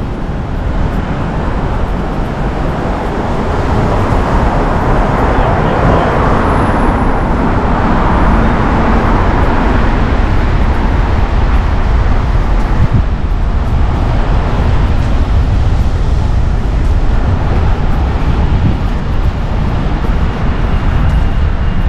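City street traffic noise heard from a moving bicycle: a steady rumble of cars and engines, louder from about four seconds in as traffic goes by.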